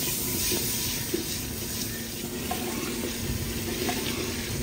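Bitter gourd pieces and onions sizzling steadily in hot oil in a clay pot as they are stirred with a spoon, with a few faint clicks of the spoon against the pot.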